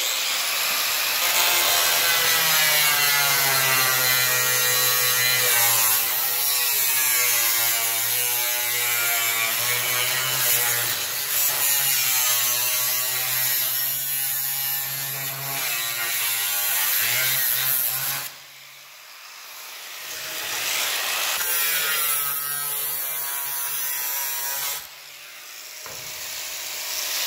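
Angle grinder grinding into sheet steel, its motor pitch wavering as it is leaned into the metal. It eases off sharply twice, about two-thirds through and near the end, then builds back up each time.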